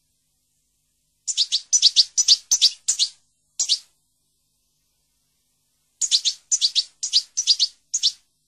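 A small songbird singing two runs of rapid, high chirping notes, each lasting two to three seconds, with a clean gap between them.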